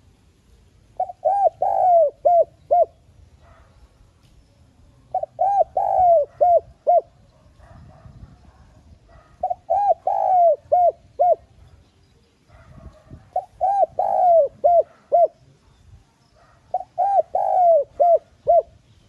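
Spotted dove cooing its song: five phrases about four seconds apart, each a quick run of about six short coos with one longer note in the middle.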